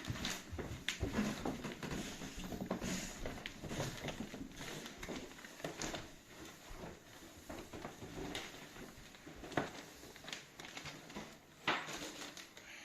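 Irregular footsteps with small knocks, clicks and rustles of people moving about and handling gear.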